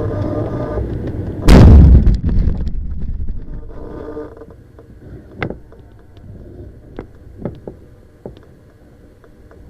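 Rushing air noise on a Ka-8 glider, cut by a sudden very loud thump and rumble about a second and a half in, as the glider hits the ground, which then fades out into scattered light knocks and clicks as it comes to rest.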